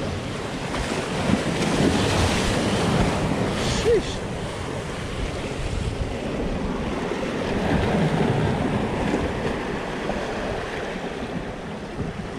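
Surf washing and breaking over the rocks of a jetty, with wind buffeting the microphone. The wash swells about two seconds in and again near the middle.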